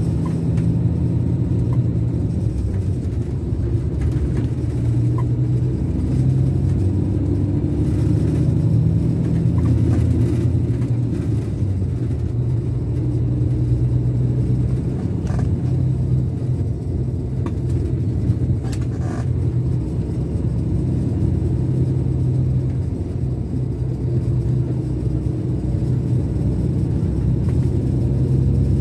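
Scania K410 coach's DC13 inline six-cylinder diesel running at a steady cruise, a loud low rumble with small rises and falls in engine speed. Heard from inside the upper deck.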